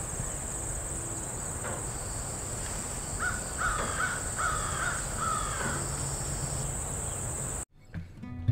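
Outdoor field ambience: a steady, high insect drone with a crow cawing four times in the middle, over a low rumble. It cuts off shortly before the end, and guitar music starts.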